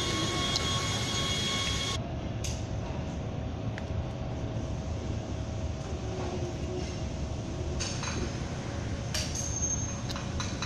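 Steady low hum of a workshop floor with a faint steady tone, and a few light clicks and clinks as electrical connectors and small parts are handled and fitted on an electric chain hoist.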